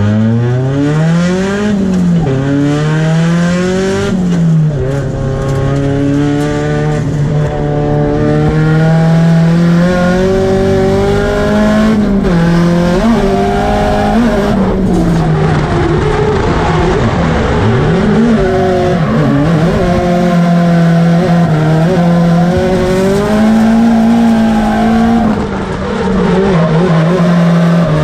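Drift car's engine at high revs, heard from inside the cockpit. The revs climb and drop back twice in the first few seconds, are held high and steady for long stretches, and dip and flare quickly around the middle, over the noise of the tyres sliding.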